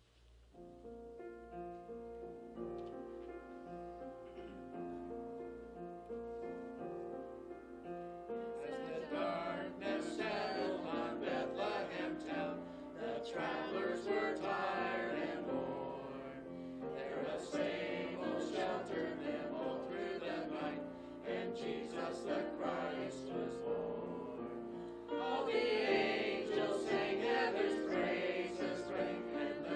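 Small mixed choir of men and women singing a Christmas cantata song with instrumental accompaniment. The accompaniment plays alone for the first several seconds, with held chords, before the voices come in about nine seconds in.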